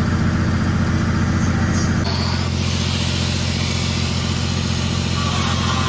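The welding rig's engine runs steadily. About two seconds in, a die grinder with a carbide burr bit starts grinding steel, gouging out the old weld on the excavator's H-link.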